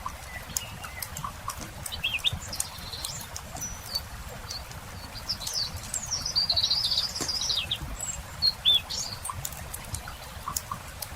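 Songbirds chirping and trilling, busiest about halfway through with a run of quick notes and two sharp chirps soon after. Under them a campfire crackles with frequent small pops.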